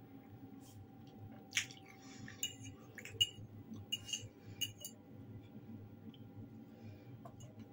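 Metal fork clinking against a ceramic bowl while picking up fried potatoes: a series of light clinks from about a second and a half in until about five seconds in.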